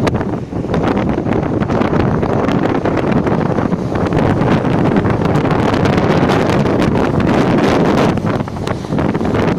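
Strong north-easterly storm wind buffeting the microphone, a loud, continuous rumbling rush with rapid flutters.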